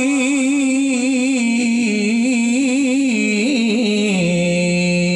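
A man's voice chanting the Arabic opening of a sermon in a long melismatic style through a microphone, holding one long note whose pitch wavers and then steps down about four seconds in and holds lower.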